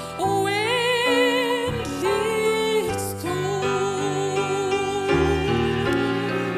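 A woman singing a slow hymn melody in long held notes with vibrato, over gentle instrumental accompaniment.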